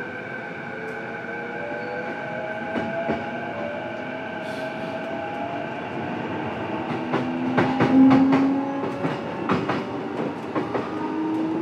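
Onboard running sound in a motor car of a JR East E233-7000 series electric train picking up speed. The traction motor and inverter whine climbs slowly in pitch over the rumble of the wheels. From about halfway, short clicks and clacks of wheels over rail joints and points come thick and fast and the sound grows louder.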